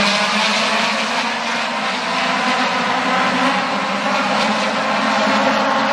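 A pack of Aussie Racers race cars, which run motorcycle engines, driving past together. Many high-revving engines overlap in a continuous loud drone, their pitches shifting up and down as the cars accelerate and change gear.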